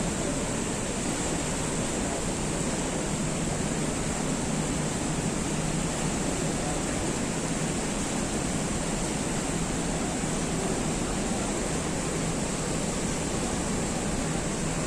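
Waterfall: a steady, dense rush of falling water.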